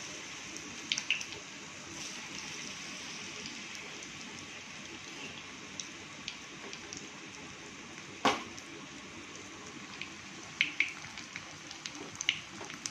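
Batter-coated chicken pakoras deep-frying in hot oil in an iron kadai on a low flame: a steady sizzle with scattered pops and crackles, and one sharp click about eight seconds in.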